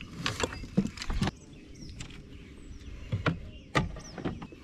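Several sharp knocks and rattles of fishing gear handled on a plastic kayak, as a fish measuring board and then a landing net are picked up.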